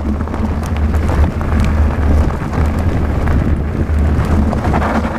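Wind buffeting an action camera's microphone on a moving mountain bike: a steady low rumble, with scattered clicks and rattles from the bike running over rough trail.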